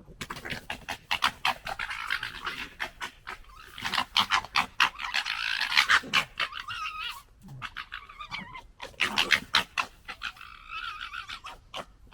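Red foxes gekkering: a rapid, stuttering throaty chatter in several bouts with short breaks, the call foxes make when squabbling face to face.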